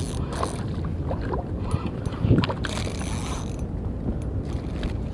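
Spinning reel on an ultralight rod being cranked in short spells, a mechanical gear whir about a second at a time, with one thump a little over two seconds in.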